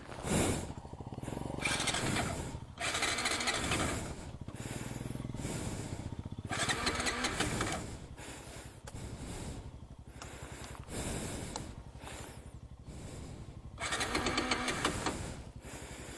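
Bajaj Pulsar NS200's single-cylinder engine revving in uneven bursts, the throttle opened and closed again and again.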